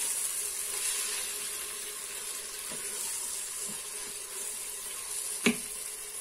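Diced vegetables and turkey sizzling in an electric multicooker pot, a steady hiss, with light scrapes of a silicone spatula stirring. About five and a half seconds in, a single sharp knock as the spatula is set down against the pot.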